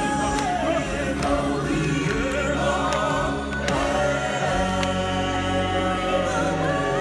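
Stage-show music with a choir singing long held notes over a steady bass line.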